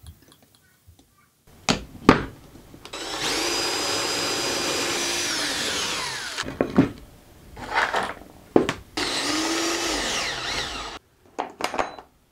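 DeWalt 20V cordless drill boring pocket holes through a Kreg pocket-hole jig, in two runs: the first about three seconds long, whining and then winding down, the second about two seconds long and stopping abruptly. Sharp knocks from the jig and wood being handled come before and between the runs.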